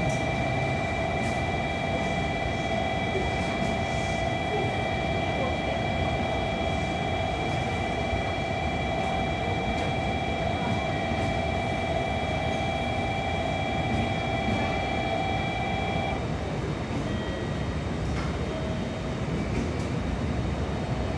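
JR Kyushu 787 series electric trains at a station platform: a standing train gives off a steady rushing hum with several high whining tones, which cut off suddenly about sixteen seconds in. Near the end a second 787 series train pulls in alongside the platform.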